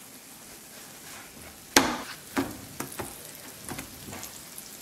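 Oil sizzling under sugar-filled flatbreads on an electric griddle as they are turned with a silicone spatula. About five sharp taps over the steady frying hiss, the loudest about two seconds in.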